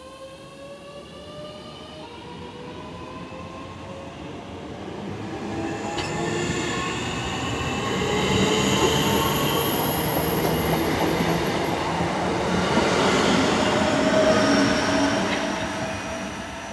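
Class 465/466 Networker electric multiple unit pulling away: the traction motors whine in several tones that climb steadily in pitch as it accelerates, over rising wheel-and-rail noise. The noise swells as the carriages run past and dies away near the end as the train recedes.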